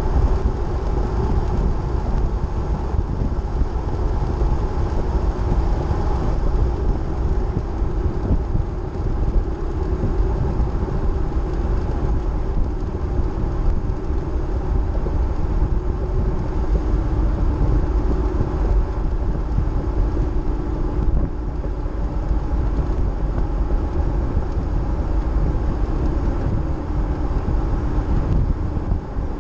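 A car driving steadily at road speed on a paved highway: a constant low rumble of engine and tyres, with a faint tone that drifts slightly in pitch.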